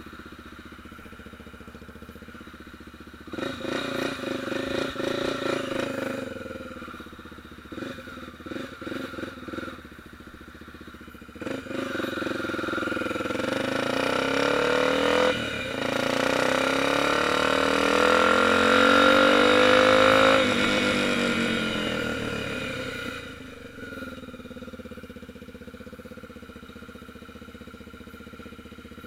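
Motorcycle engine revving: a burst of throttle a few seconds in and several short blips, then a long acceleration with rising pitch that dips briefly for a gear change, climbs again and cuts off sharply, then dies back to a steady low running sound.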